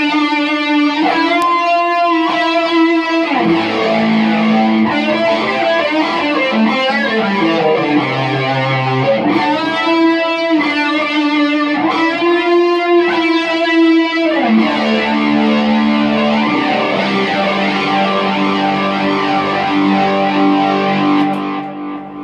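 Electric guitar played through the amplifiers with an Electro-Harmonix Electric Mistress flanger switched on, among other pedals: long ringing chords, then lower single notes, chords again about ten seconds in, and single notes to finish.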